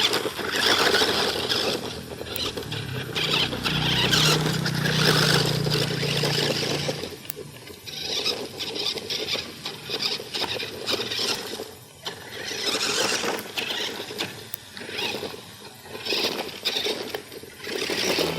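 Toy RC rock crawler's small electric motor and gearbox whining in spurts as it drives, swelling and dropping off several times.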